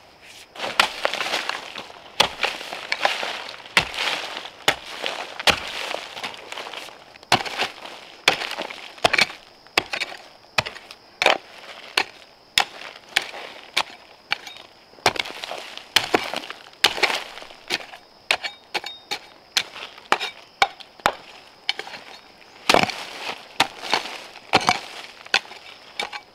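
A hand hoe chopping into soil on a slope covered in dry leaf litter: repeated strikes about once a second, with leaves and earth scraping between them.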